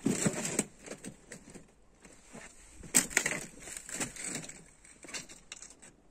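Footsteps crunching over rubble of broken concrete blocks and debris, in irregular crunches and clicks.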